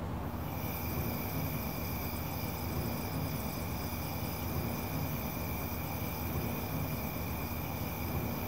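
Steady outdoor night ambience: a constant low rumble with a continuous high chirring of night insects over it, both setting in at the start.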